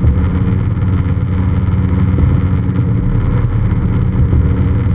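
Piston engine and propeller of a light single-engine aircraft running steadily in flight, heard inside the cockpit as a constant loud drone.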